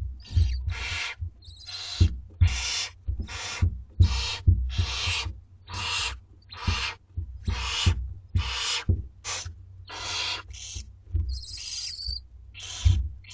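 Barn owlets giving their rasping, hissing begging screeches over and over, roughly one to two a second. This is the food-begging call of young chicks in the nest. Soft low bumps sound beneath the calls.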